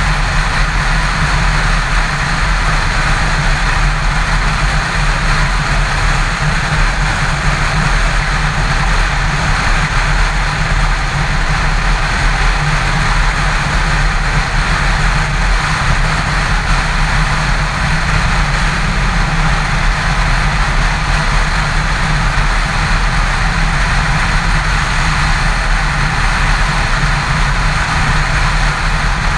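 Yamaha FZ6 motorcycle's inline-four engine running steadily at highway cruising speed, mixed with a constant rush of wind and road noise.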